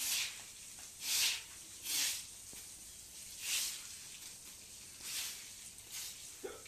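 Short hand broom sweeping a wet concrete floor: a swish with each stroke, roughly one a second, with short pauses between.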